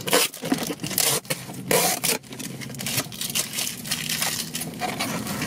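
Packing tape being peeled and torn off a cardboard box, with the cardboard scraping and rustling under the hands. A few louder rips come in the first two seconds, then quieter handling.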